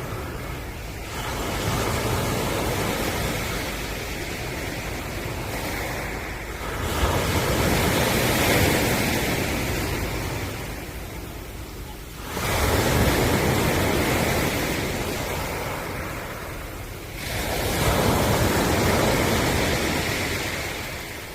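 Ocean surf: waves break and wash in about every five seconds, four times, each surge building quickly and then fading away.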